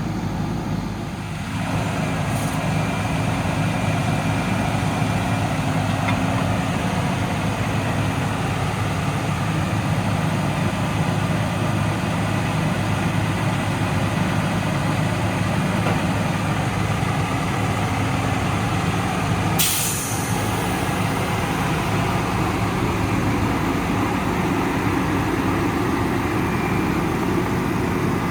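Freightliner M2's Cummins ISL 8.9 diesel engine running steadily. About twenty seconds in comes a short, sharp hiss of released air, typical of the truck's air brakes.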